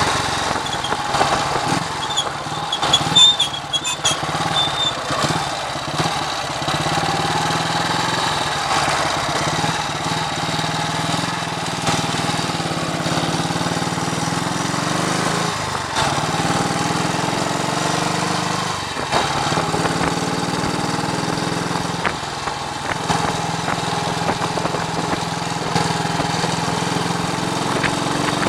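1939 AJS Model 22's 250 cc single-cylinder four-stroke engine running as the motorcycle is ridden, with the engine note dipping briefly a few times after the halfway mark. Wind buffets the microphone, adding rough noise, heaviest a few seconds in.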